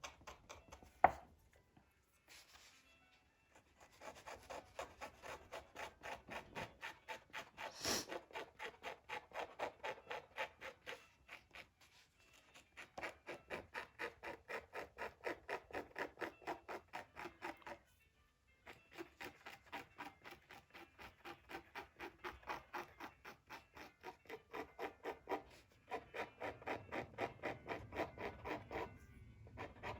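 Scalpel blade scraping the surface of Torah parchment (klaf) in quick, short, even strokes, several a second, in runs with brief pauses, shaving off the damaged top layer and surface dirt.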